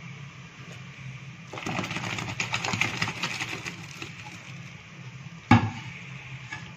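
Pot of rice par-boiling for biryani at a rolling boil, the water bubbling and crackling over a steady low hum; the bubbling grows louder from about a second and a half to four seconds in. A single sharp knock about five and a half seconds in.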